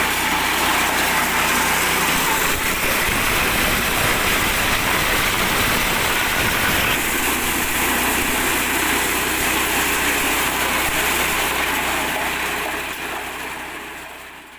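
Small 8 hp petrol engine running steadily as it drives a mini corn sheller, with a dense hiss of the machine over the engine note; the sound fades out near the end.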